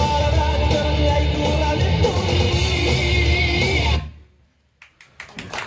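Loud recorded dance song with guitar and singing, which cuts off suddenly about four seconds in. A few sharp claps start near the end.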